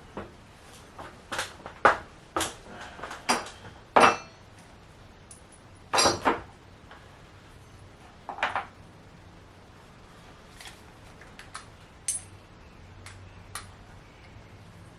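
Metal hardware clinking and knocking as a steel mounting bracket and its lag bolts are handled and set in place: about a dozen sharp, separate clinks, a few with a short ring, growing sparser after the first nine seconds.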